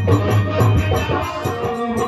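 Rajasthani folk music played live on drum and harmonium for a pot-balancing dance, with a quick steady beat of about five strokes a second over long held notes.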